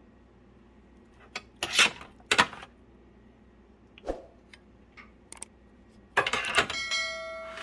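Metal serving tongs clicking and scraping against a ceramic plate while pieces of bread and fried meat are served: a few separate sharp clicks, then a louder scrape about six seconds in, followed by a brief steady ringing tone near the end.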